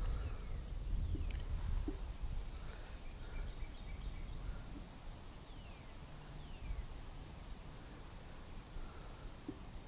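Faint outdoor ambience beside a creek: a low rumble with a few short falling bird chirps over a soft background hiss.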